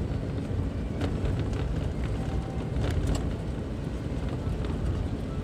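Steady low rumble of a car driving on a wet road in the rain, heard from inside the cabin, with a few faint ticks over it.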